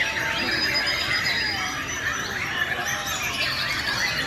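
Many white-rumped shamas singing at once, a dense tangle of overlapping whistles and squeaky, chattering phrases.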